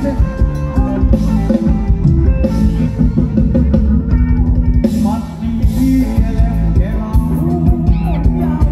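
Live band playing upbeat ramwong dance music. A drum kit keeps a steady beat under guitar and a singer's voice.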